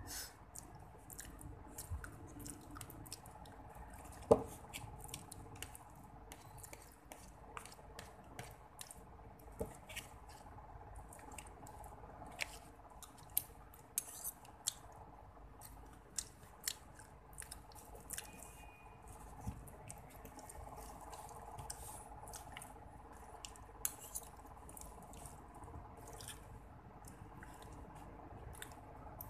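Metal fork and spoon clicking and scraping against a cardboard food box and each other while food is scooped up: scattered sharp ticks, with one louder knock about four seconds in, over a faint steady hum.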